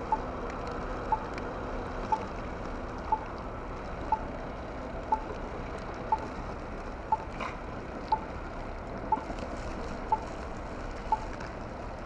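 Steady rush of blizzard wind, with a short, high electronic beep repeating exactly once a second throughout.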